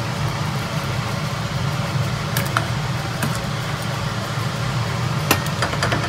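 A few light clinks of a metal ladle against a stainless steel cooking pot, over a steady low hum.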